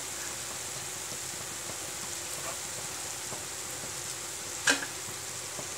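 Gulgule (wheat-flour and jaggery fritters) deep-frying in hot oil in a kadhai, a steady sizzle, with one sharp click about three-quarters of the way through.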